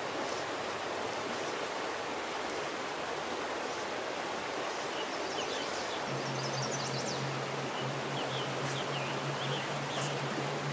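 Steady rushing of flowing river water. A low steady hum comes in about six seconds in, and a few faint high chirps sound around the middle.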